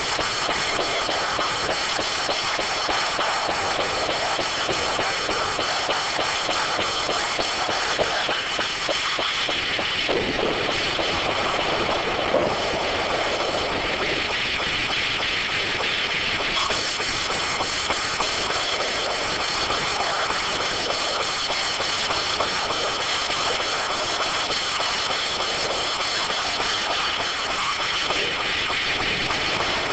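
A D9 automated circular sawmill running, its spinning sawblades and machinery making a steady noise with a continuous high-pitched whine over it.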